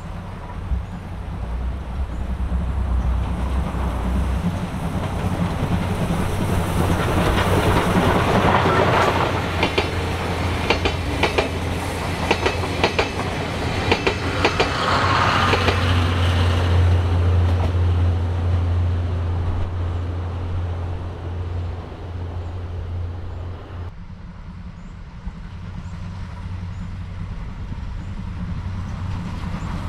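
A train passing close by, its wheels clacking over rail joints in quick runs of clicks as it goes by, then the sound fading away.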